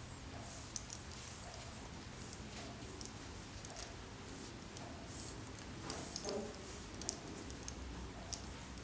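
Light, irregular clinking and clicking of a horse's bridle hardware (metal buckles, clips and bit rings) as the bridle is handled and adjusted at the horse's head.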